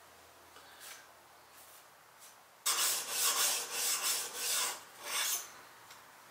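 A steel blade is rubbed back and forth on a sharpening stone, about seven quick rasping strokes beginning near the middle and stopping shortly before the end.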